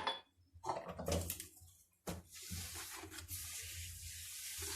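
Liquid poured into a jar of packed vegetables for pickling: a knock near the start, then from about two seconds in a steady pouring hiss.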